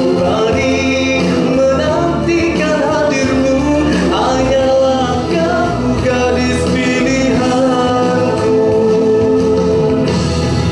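A man singing a Malay nasheed into a microphone over instrumental accompaniment, his melody held in long, sliding notes.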